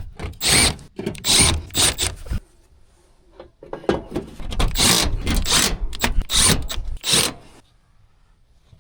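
Sheet-metal access door of a package HVAC unit being slid back into place, scraping and rubbing in two stretches of several strokes each with a short pause between.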